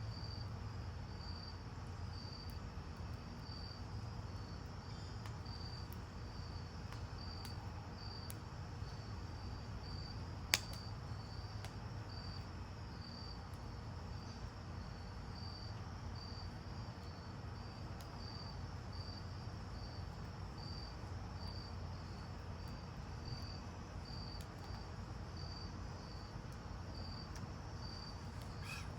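A cricket chirping steadily in an even rhythm, a little faster than once a second, over a low background rumble. There is one sharp click about ten seconds in.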